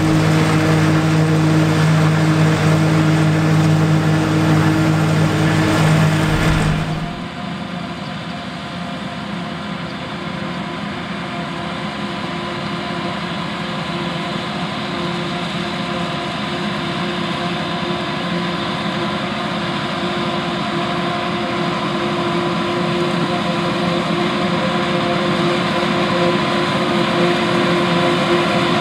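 John Deere 4455 tractor's 466 cubic inch six-cylinder diesel working under load, driving a 3975 forage harvester chopping standing corn: a loud, steady machine drone. About seven seconds in the sound cuts to a quieter, duller steady hum that slowly grows louder.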